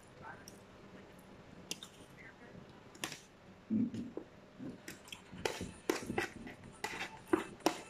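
Forks and spoons clicking and scraping against plates, with chewing. The clicks are sparse at first and come thick and fast in the last couple of seconds.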